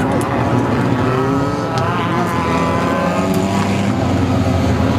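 Off-road race vehicle engine running loud, its pitch rising and falling as it revs.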